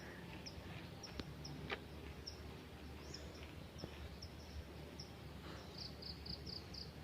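Faint outdoor ambience in forest: short, high chirps repeating about twice a second, a little faster near the end, from a bird or insect, with a few light clicks.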